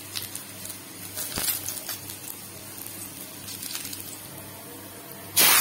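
Chopped garlic frying in hot mustard oil in a wok: a low sizzle with scattered pops and crackles. Near the end comes a sudden, much louder burst of sizzling as green chillies go into the oil.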